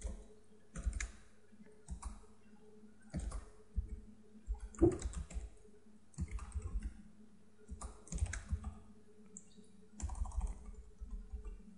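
Typing on a computer keyboard: quick runs of keystroke clicks in irregular bursts with short pauses between them.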